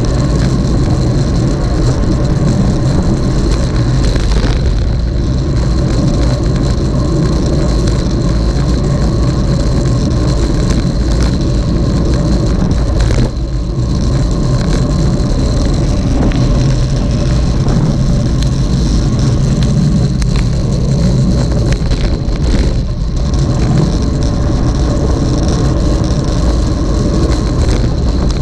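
Motor vehicle running at a steady speed, its engine humming under loud road and wind noise, with a brief drop in level about thirteen seconds in.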